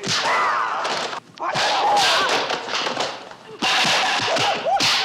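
FPV quadcopter's motors and propellers revving in repeated surges, the pitch sweeping up and down with the throttle as it manoeuvres, with rushing air noise. The sound dips briefly about a second in and again past three seconds.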